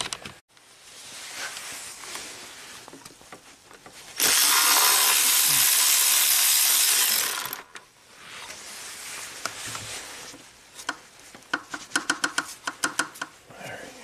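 Cordless power tool whirring steadily for about three seconds, spinning out a bolt on the engine's inner timing cover. It is followed near the end by a quick run of light metallic clicks.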